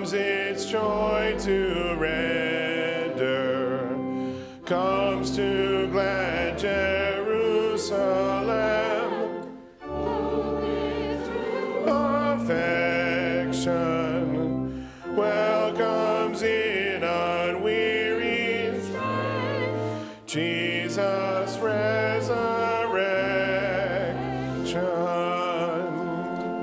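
Church choir singing a hymn with instrumental accompaniment holding low notes, in phrases broken by short pauses about every five seconds.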